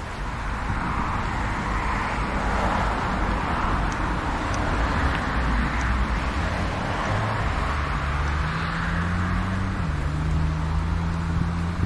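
Road traffic: tyre and road noise of passing vehicles swells and fades, and a low engine hum sets in about seven seconds in, shifting in pitch.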